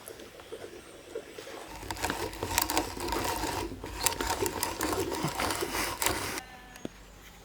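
Brace and bit boring into oak: the bit cuts with a steady rumble and a dense crackle of clicks, starting about two seconds in and stopping suddenly near the end.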